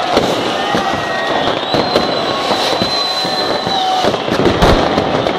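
Fireworks and firecrackers going off all around: a constant crackle of cracks and bangs, with long steady whistles running through it.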